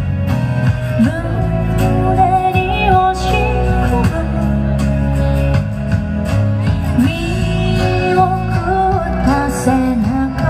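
A woman singing live into a microphone over amplified pop accompaniment with a steady beat.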